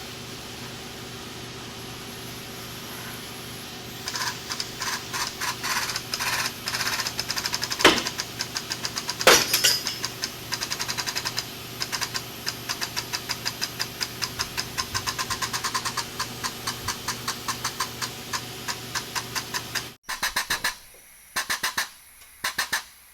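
Workshop machine noise: a steady hum, then about four seconds in a fast, even run of sharp knocks, several a second, that keeps going until a sudden cut near the end.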